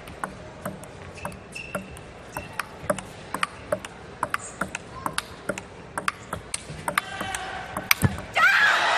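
A table tennis rally: the ball clicks sharply off the rackets and the table at about two to three strokes a second. The clicks stop about eight seconds in, and the crowd breaks out in loud applause and shouting near the end.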